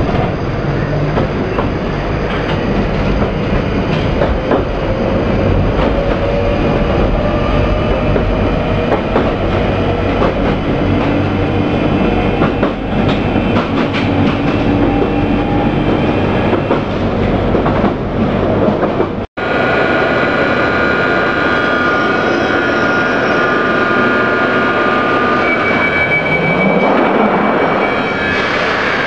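London Underground 1995 Stock train running, heard from inside the carriage: a loud, steady rumble with rattling and clatter from the wheels. After a sudden cut about two-thirds of the way in, the train stands at a platform with steady high electrical tones, then a rising whine as it pulls away near the end.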